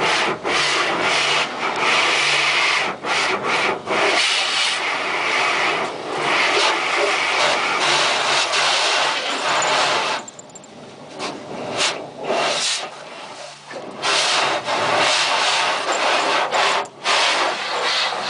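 Automatic car wash heard from inside the car: rotating brushes scrubbing against the body and windows amid spraying water, a loud rubbing rush that surges and eases as the brushes pass, briefly quieter about ten seconds in.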